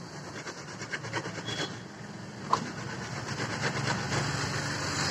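Plastic oil containers being handled while engine oil pours into a funnel: crinkling and rubbing of plastic, with one sharp click about two and a half seconds in.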